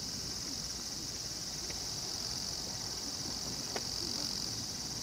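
Steady high-pitched insect chorus from the surrounding woods, with a single short click near the end.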